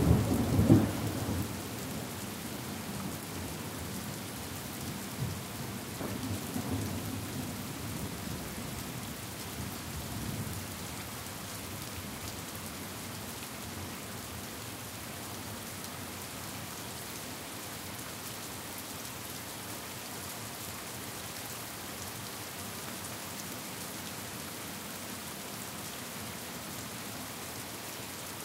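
Steady rain falling, with a peal of thunder fading over the first second or two and a fainter rumble of thunder a few seconds later. After that comes only an even rain hiss.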